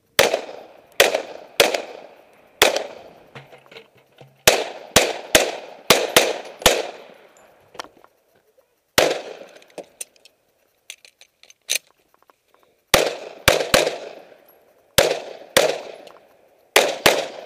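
Handgun firing a rapid course of fire: about twenty sharp shots in quick pairs and short strings. There is a break of a few seconds about two thirds of the way through before the shots resume.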